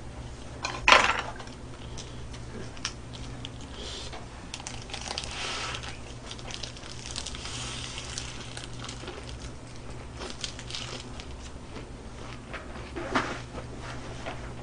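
Close-up crunchy chewing of a mouthful of iceberg lettuce wrapped around grilled pork belly, with a short loud sound about a second in and another shortly before the end. A steady low hum runs underneath.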